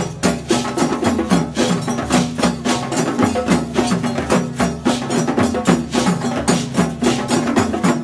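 Several djembes played together with bare hands in a rapid, steady rhythm.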